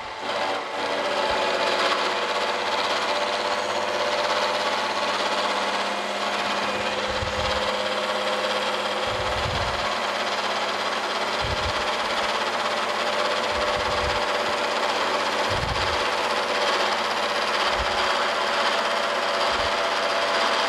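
Milling machine face-mill cutter taking a 50-thousandths facing pass across the top of a rough casting, cutting through its hard scale: a loud, steady cutting noise over the machine's running hum, starting about half a second in.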